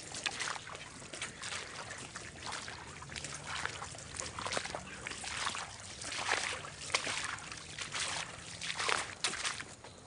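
Irregular sloshing and splashing footsteps of people wading through shallow standing swamp water.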